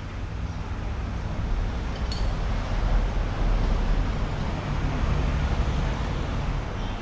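Road traffic going by: a steady rumble and hiss that swells about a second and a half in and eases off near the end, like a vehicle passing.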